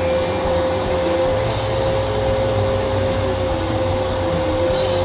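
Vacuum cleaner running steadily, a constant motor whine over a rushing of air, with a lower hum that wavers up and down as it works.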